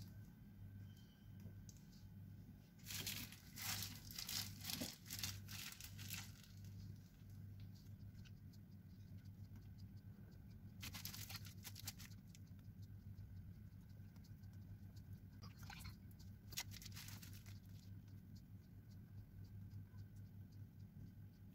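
Plastic piping bag crinkling as cream is squeezed out of it, in three spells of crackling, over a faint steady low hum.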